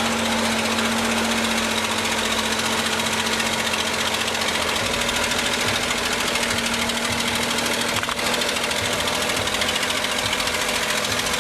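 Caterpillar D7F bulldozer's diesel engine running steadily under work, with a constant low hum that fades out about halfway through.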